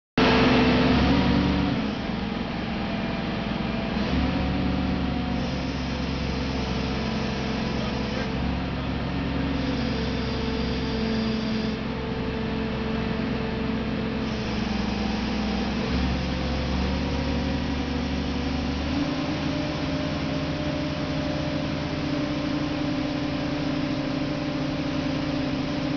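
Truck-mounted crane's engine running steadily while the crane hoists a steel lifting frame. Its note shifts several times as the hoist and boom are worked, and it is louder for the first two seconds.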